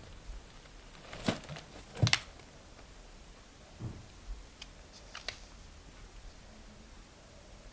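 Quiet room tone with a few scattered light taps and clicks, the loudest about a second and two seconds in, then a soft thud and two faint ticks.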